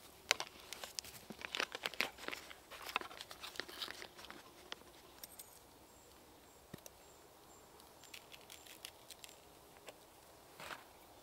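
Irregular crinkling and crackling of dry material being handled, dense for the first four seconds or so, then a few scattered ticks, with a faint thin high tone around the middle and a short burst of rustling near the end.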